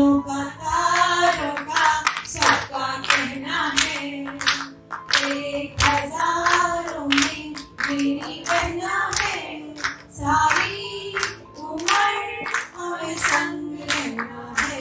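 A group of women singing a song together, clapping along to a steady beat.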